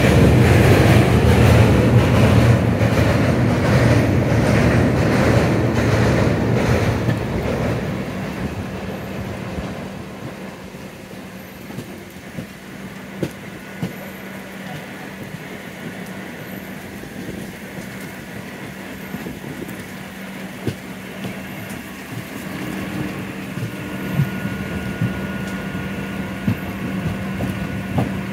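Train running close alongside: a Mumbai suburban local's rumble and rapid wheel clatter, loud for the first seven or eight seconds, then fading. After that, quieter scattered knocks of train wheels over rail joints at slow speed, with a steady hum.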